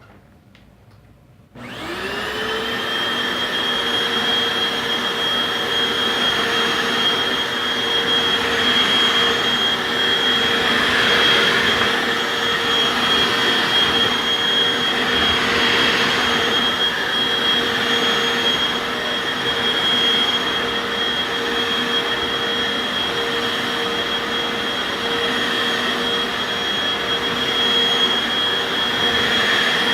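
Hoover FloorMate carpet washer switched on about one and a half seconds in, its motor spinning up quickly to a steady high whine. It runs on with a rushing sound that swells and eases.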